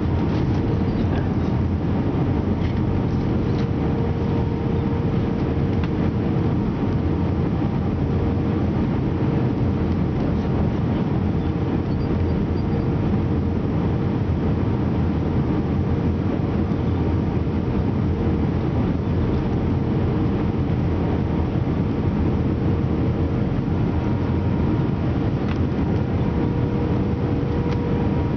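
Steady cabin noise inside an Airbus A320 on approach with flaps extended: a deep rush of engine and airflow noise with a steady hum running through it.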